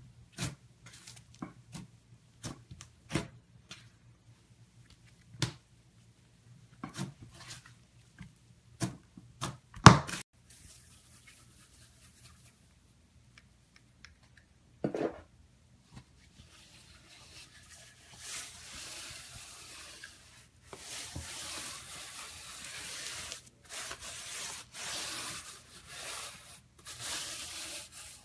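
Slime being handled by hand: about ten seconds of separate wet clicks and pops, the loudest about ten seconds in, then from about eighteen seconds on longer stretches of crackling, rustling squishing with short breaks.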